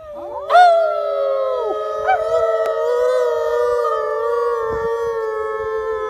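A wolf-like dog howling in long, slightly wavering notes that start about half a second in. A second howl runs alongside it, from the man beside the dog howling to set it off.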